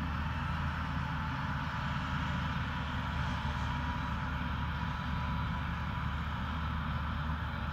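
Straight-piped Fendt 927 Vario tractor's six-cylinder engine running steadily under load with a deep drone, together with a Claas Jaguar 950 forage harvester working beside it as it loads chopped grass into the tractor's trailer.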